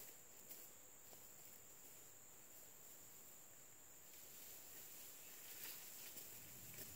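Near silence with faint, steady, high-pitched insect chirring in the background.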